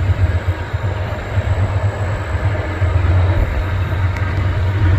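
Freight train passing, a steady low rumble.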